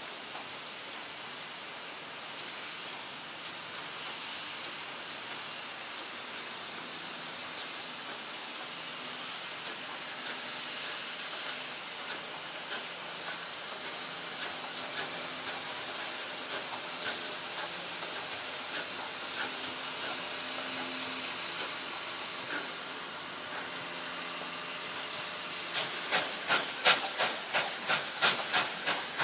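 Victorian Railways steam locomotive working a passenger train, a steady hiss of steam and exhaust that slowly builds. Near the end, sharp exhaust beats come in, about three a second, as a locomotive works under steam.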